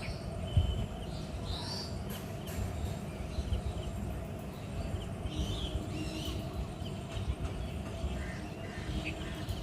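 Birds chirping and calling here and there over a steady low rumble.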